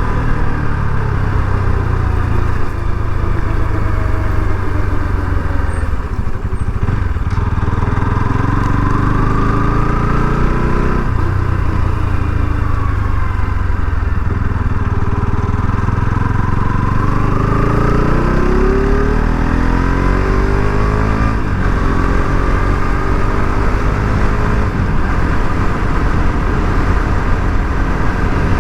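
Bajaj Pulsar RS 200's single-cylinder engine running under way, its pitch sagging and then climbing steeply about two-thirds through as the bike accelerates, with a couple of brief breaks in the note that fit gear changes. A steady rush of wind noise on the microphone lies under it.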